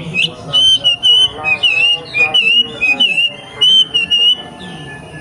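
Young wild wambi songbird singing a fast run of clear, repeated whistled notes that stops about four and a half seconds in.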